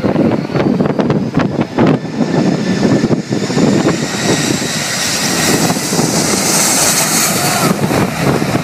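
Jet airliner's engines whining ever louder from about three seconds in, over strong wind gusting on the microphone. The wind buffeting is loudest in the first few seconds.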